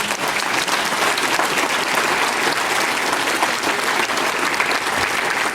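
Audience applauding in a hall, steady sustained clapping from many hands.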